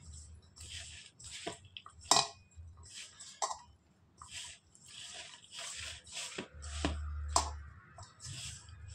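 Thin potato slices being mixed by hand or spoon with a coating of gram flour, cornflour and spices in a bowl: repeated short squishy rustles about twice a second, with a few sharper knocks against the bowl.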